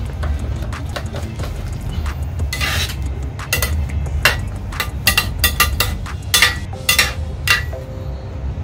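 Metal ladle stirring a thick chicken and vegetable stew in a stainless steel pot, clinking and scraping against the pot in irregular knocks that come thickest in the middle of the stretch. A steady low hum runs underneath.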